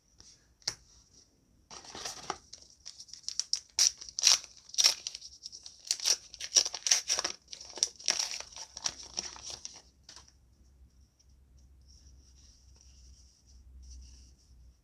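A trading-card booster pack's wrapper crinkling and tearing open: a run of sharp crackling rustles for about eight seconds, then only faint rustling from about ten seconds in.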